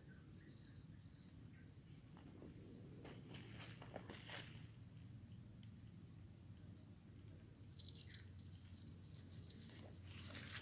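Steady, high-pitched chorus of insects in the plantation undergrowth, with a quick run of short, sharp chirps about eight seconds in.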